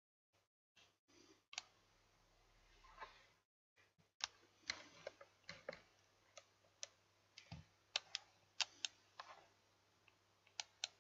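Faint, irregular clicking of a computer mouse as text is selected and copied from a right-click menu, over a faint steady low hum.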